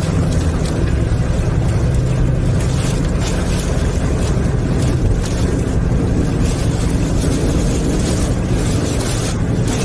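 Strong storm wind rumbling on the microphone: a steady, loud low rumble with gusting hiss above it.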